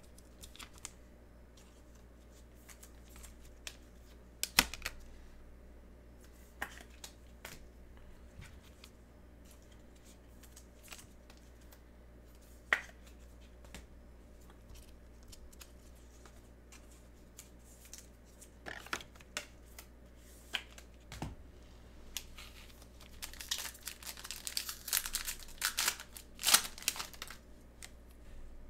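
A trading card pack wrapper being torn open and crinkled, with scattered taps and clicks of cards being handled. The tearing and crinkling is densest near the end.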